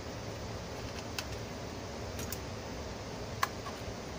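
A few small clicks and taps as a computer motherboard and a plastic pry tool are handled, the loudest about three and a half seconds in, over a steady low hum.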